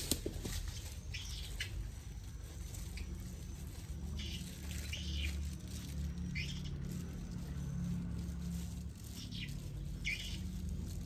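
Short, high bird chirps every second or so over a steady low hum, with one sharp click at the start.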